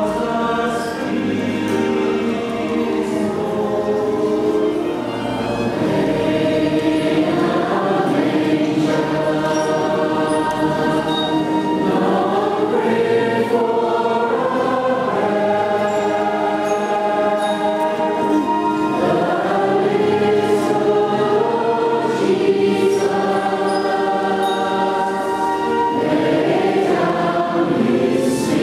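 Choir singing a Christmas carol in a large, reverberant church, the voices holding long chords that move from note to note.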